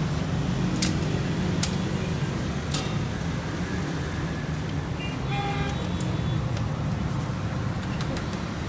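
Steady low hum of an idling engine, with a few sharp clicks.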